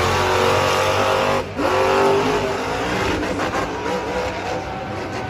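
Grave Digger monster truck's engine revving hard, its pitch rising and falling repeatedly, with a brief drop-off about a second and a half in.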